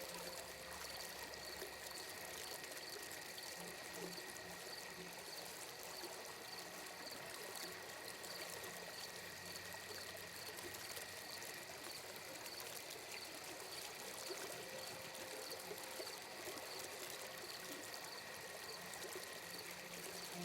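Ambient sleep soundscape of gently running water, a steady stream-like trickle. Over it, a faint high tone pulses about twice a second, and soft low tones fade in and out.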